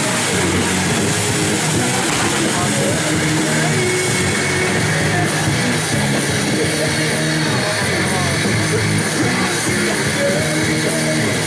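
Rock music playing steadily.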